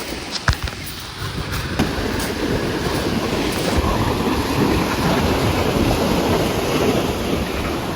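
Rushing noise of sea waves and wind buffeting the microphone, swelling about two seconds in, with a few sharp clicks near the start.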